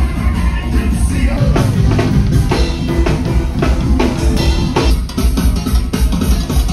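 Loud live band music with a drum kit beating out a steady, driving rhythm.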